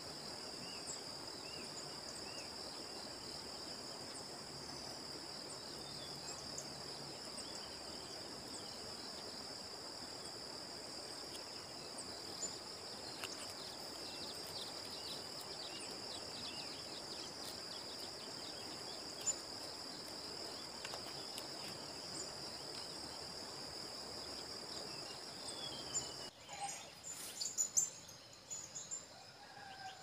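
Steady high-pitched insect drone with faint, scattered bird chirps over it. About 26 seconds in, the drone cuts off abruptly and a few louder bird calls follow.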